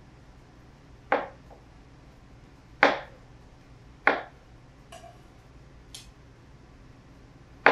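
Chef's knife slicing through grilled peaches and knocking down on a cutting board: four sharp chops a second or more apart, with two fainter taps between them.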